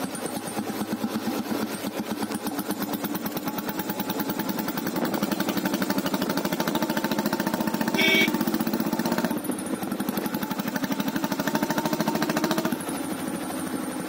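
Royal Enfield Bullet Standard 350's single-cylinder engine running on the move through a hollow bend pipe fitted with a whistle and a hollow long-bottle silencer, giving a steady rapid exhaust beat. A thin high whistle comes and goes over the exhaust note near the start and end, and there is a short louder tone about eight seconds in.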